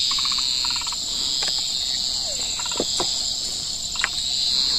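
Steady, high-pitched chirring of an insect chorus, with short pulsed calls recurring every second or two and a few sharp clicks, the sharpest about four seconds in.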